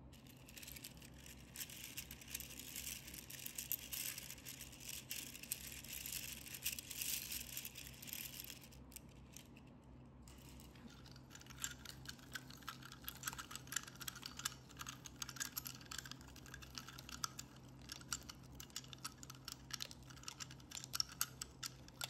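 Dry seashells clicking and rattling against one another as a mesh net bag of them is handled: a dense run of small clicks, a short lull about nine seconds in, then more separate, sharper clicks.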